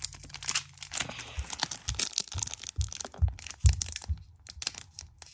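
Foil Pokémon booster pack crinkling and tearing as it is ripped open by hand, with several dull bumps in the middle.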